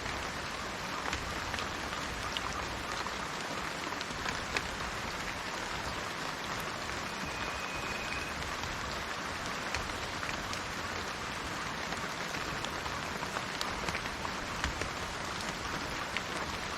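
Steady rain falling, with scattered individual drops ticking sharply on a surface. About seven seconds in a bird sings one held whistled note for about a second.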